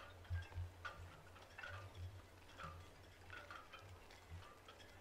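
Faint ticking and light clicks at an uneven pace, a few a second, over soft low thumps.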